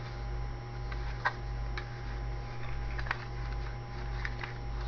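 A few sparse, light clicks and taps from handling the kit's plastic parts and packaging, over a steady low hum.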